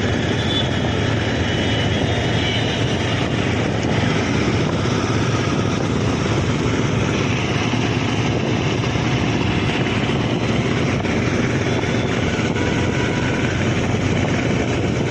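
Hero Honda CBZ motorcycle's single-cylinder four-stroke engine running steadily.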